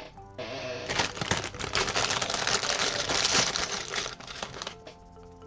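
Loose plastic Lego pieces rattling and clattering: a dense run of small clicks that starts about half a second in and dies away near the end.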